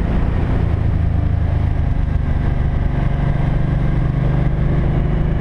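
Cruiser motorcycle engine running steadily under way, heard from the bike itself with road and wind noise.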